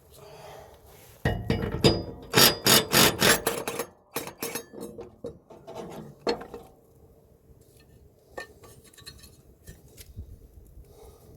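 Metal tools and mower-deck hardware clanking and knocking in a quick, irregular run of sharp hits, followed by a few lighter scattered clicks.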